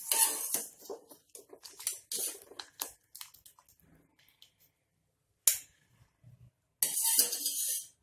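A wire-mesh spider strainer scraping and clinking against a steel pot as parboiled potato cubes are scooped out of the water, with scattered light clinks, one sharp clank about halfway through, and a longer scrape near the end.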